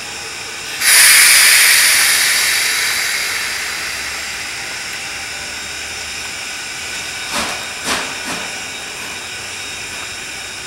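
Strasburg Rail Road No. 90, a 2-10-0 steam locomotive, venting steam: a sudden loud hiss about a second in that fades over a few seconds into a steady hiss. Three short knocks come near the end.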